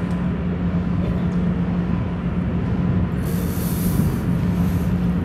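Steady low drone of the cruise ship Adventure of the Seas' machinery heard from the open deck, one low tone over a noisy hum, with a brief hiss about three seconds in.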